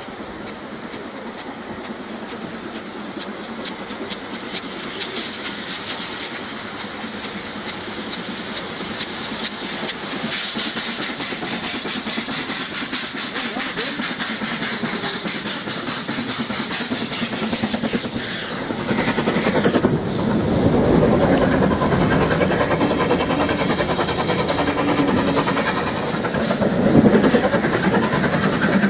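Two steam locomotives double-heading a train, LMS Stanier 8F 2-8-0 No. 48151 leading Jubilee 4-6-0 No. 45690 Leander, working hard on the climb: steam exhaust and hiss grow steadily louder as the train approaches. About two-thirds through, the engines pass close by and the sound becomes much louder and fuller.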